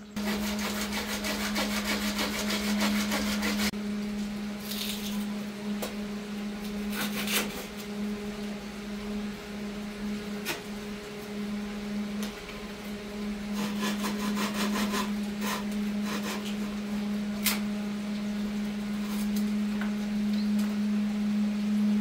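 Tree branches being sawn by hand, in runs of quick, even strokes with pauses and a few single knocks, over a steady low hum.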